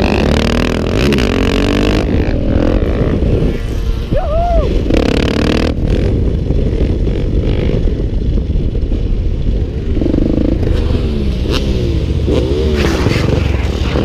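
Husqvarna 701's single-cylinder engine running hard under throttle during a wheelie run, its pitch rising and falling several times as the rider works the throttle, over heavy rushing noise.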